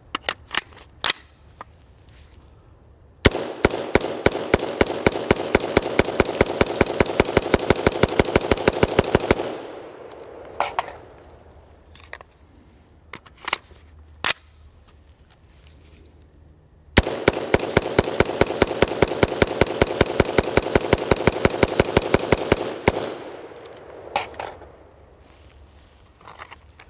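BCM 5.56 AR-15 rifle being fired in rapid strings, two long runs of shots about six seconds each, some seven seconds apart, with a few single sharp cracks in between. The rifle is being run without any cleaning or lubricant in a torture test.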